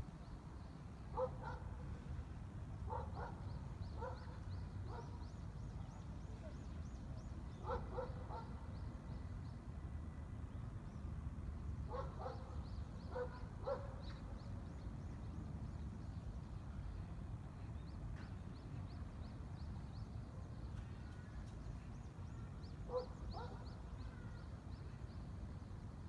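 A dog barking in scattered short bursts of a few yaps each, with small birds chirping faintly and high. A steady low background rumble runs underneath.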